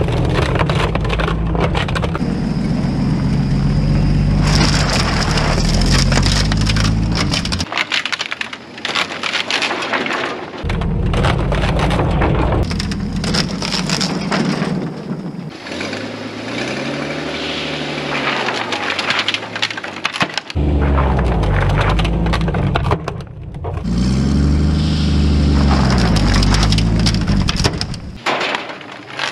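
Chevrolet G-506 truck's engine revving up and down as the truck's tires climb onto and roll over a stack of broken wooden pallets, the wood cracking and splintering under its weight. The engine note rises and falls several times and drops away near the end.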